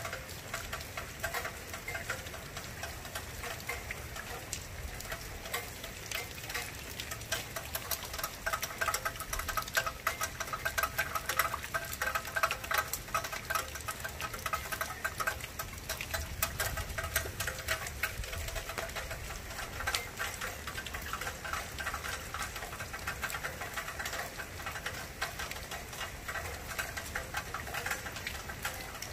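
Steady rain falling, a dense patter of many small drop taps without a break.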